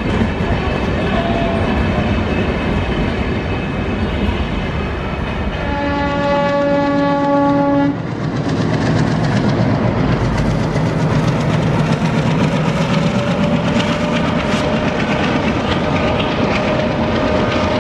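Railway coaches rolling past with a steady clickety-clack over the rail joints, and a diesel locomotive's horn sounding one blast of about two seconds around six seconds in. After a sudden change about eight seconds in, a diesel-hauled train runs along with a steady engine hum under the rail noise.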